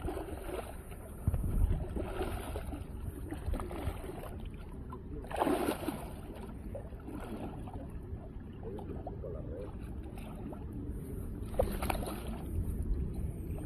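A hooked sturgeon thrashing and splashing in shallow water at the shoreline, with two bigger splashes, about five and a half seconds in and again near twelve seconds.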